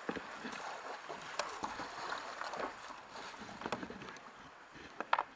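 Kayak paddle strokes dipping and splashing in calm water, with water lapping against the hull. A couple of sharper splashes come near the end.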